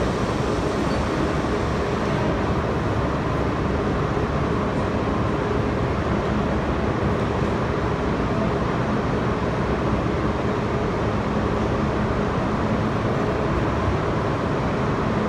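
Steady, even rumble of New York subway trains in an underground station, with no distinct clatter, squeal or horn.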